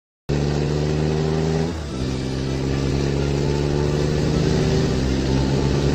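Car engine running at speed. Its pitch drops about two seconds in, then climbs slowly.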